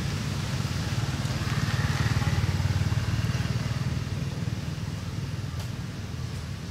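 A motor vehicle's engine, swelling to its loudest about two seconds in and fading after, as it passes by.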